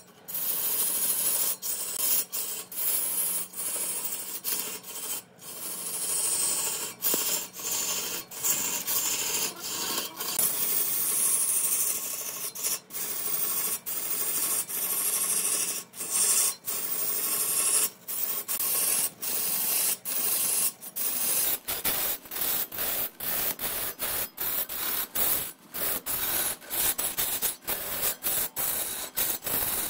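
Woodturning on a large wood lathe: a scraping rasp of a tool against the spinning wood, broken by many brief gaps that come more often in the second half.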